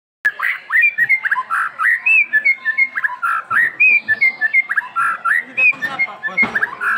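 A bird chirping and whistling up close: a rapid, varied string of short notes, many sliding up or down in pitch, starting suddenly just after the opening.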